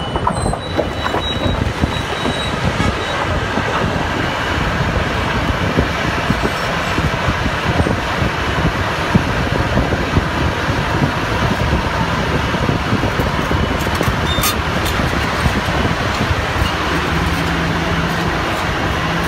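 Large SANY hydraulic excavator working a pile of broken rock: diesel engine running under load, with rocks clattering and grinding against the bucket and each other. A steady low hum comes in near the end.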